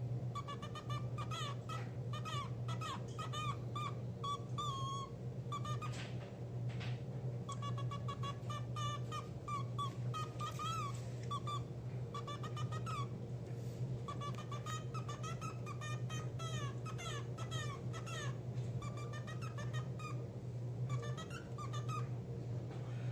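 Cockatiel chattering: quick runs of short squeaky chirps, several a second, with brief pauses between runs, over a steady low hum.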